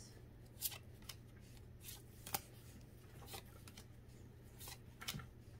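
Pokémon trading cards being flipped through by hand, each card slid from the front of the stack to the back. Faint, irregular card swishes and snaps.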